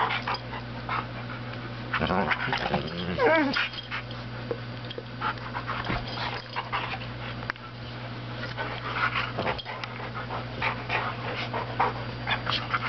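A Labrador retriever and an Alaskan malamute play-wrestling: panting, mouthing and scuffling against each other and the bedding. There is a short whine that rises and falls about three seconds in.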